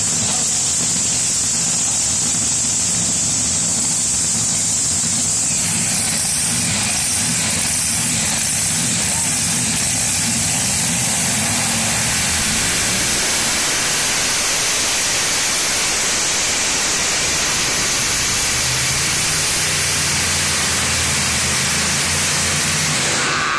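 A modified pulling tractor's engine running loud and steady, with a high whine over the low engine note. The engine's pitch shifts a few times.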